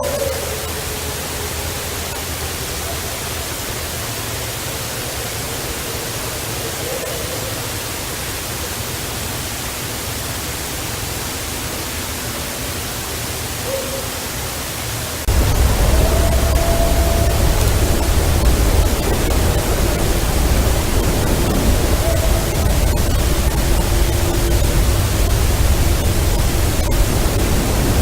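Steady loud hiss of a heavily amplified outdoor recording, with faint long drawn-out wavering calls underneath, of the kind the recordists call strange vocals. About halfway through, the hiss jumps louder and a low rumble comes in.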